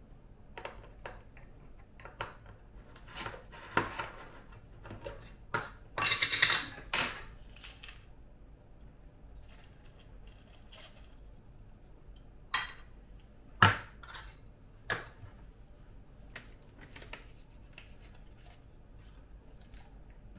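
Metal clinks, taps and scrapes from handling a tin of calcium carbide and its lid with a wire opener, with a longer scraping rattle about six seconds in and two sharp knocks around thirteen seconds in.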